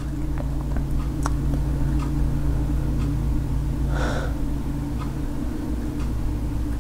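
A steady low hum, with a few faint scattered ticks and a short hiss about four seconds in.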